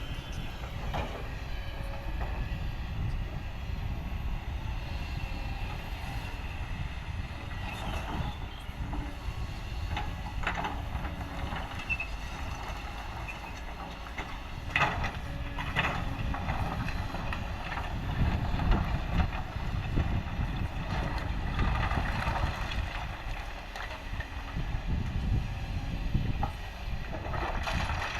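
Heavy diesel machinery running with a steady low rumble, with a few sharp knocks along the way.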